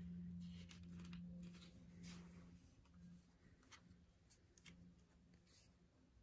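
Faint rustle of a photobook page being turned by hand, with a few light paper ticks, over a low steady hum.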